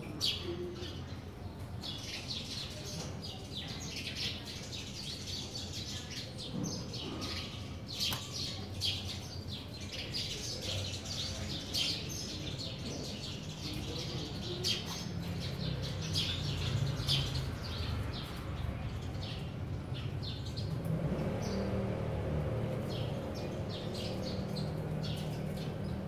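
Sparrows chirping, many short, high chirps in quick, irregular runs over a low background hum that thickens about 20 seconds in.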